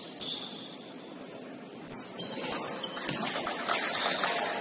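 Basketball game sounds on a gym court: short high sneaker squeaks and a few sharp knocks of the ball over a background hubbub that gets louder about two seconds in.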